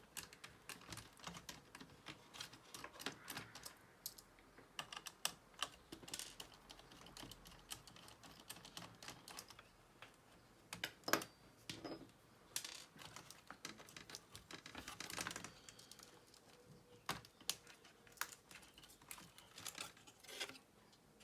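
Irregular small clicks, taps and light rattles of plastic and metal laptop parts being handled and pried apart by hand while the motherboard is taken out, with one louder knock about eleven seconds in.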